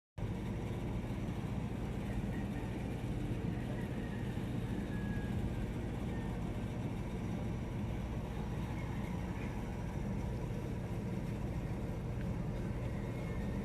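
A motor vehicle's engine running steadily, an even low hum with no revving.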